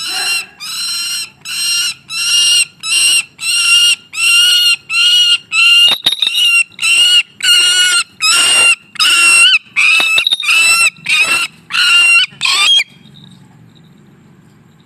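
Tethered bird of prey calling in a rapid series of loud, high-pitched squeals, about two a second. The calling stops about 13 seconds in.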